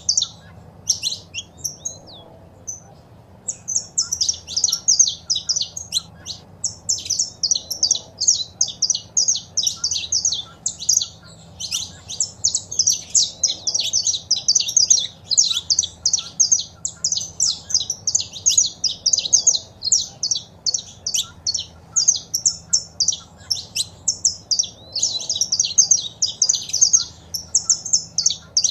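Saffron finches calling and singing: a fast, nearly unbroken run of high chirps, with a short pause about two seconds in.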